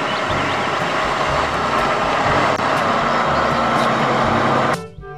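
Massey Ferguson tractor's diesel engine running under load as it pulls a reversible plough through the soil, a dense steady rumble. It cuts off suddenly near the end, replaced by music.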